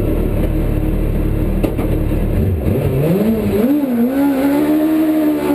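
Suzuki GSX-R 750 inline-four motorcycle engine in a Trabant race car, heard from inside the cabin. It idles with a low rumble, then about halfway through it revs up, blips up and down, and is held at raised revs, waiting to launch.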